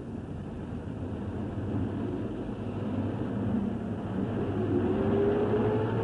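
Engine of the prototype mobile cinema vehicle running as it drives off, growing gradually louder, with a thin rising whine through the second half.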